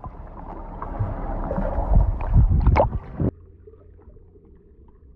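Muffled bubbling and gurgling of a phone recording underwater in a swimming pool, with several sharp pops. A little over three seconds in, it cuts to a much fainter, dull underwater hum.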